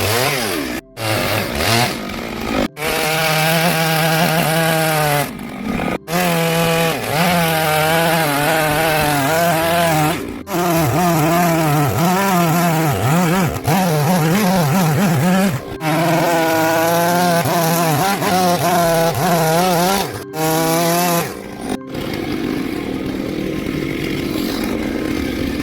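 Two-stroke chainsaw cutting into wood, its engine revving up and down as the throttle is worked, heard in a run of short clips joined by abrupt cuts. Near the end the saw gives way to a quieter, steadier sound.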